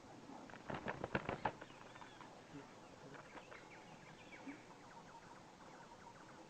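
Faint, repeated high chirps of a small parent bird confronting a snake that is raiding its nest, with a quick run of sharp clicks or knocks about a second in.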